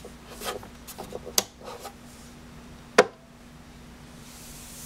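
Several light knocks and clicks of handling, then one sharp click about three seconds in: the side-mounted on-off switch of a Black Cat Lynx vinyl cutter being flipped on. A faint steady hum sits underneath.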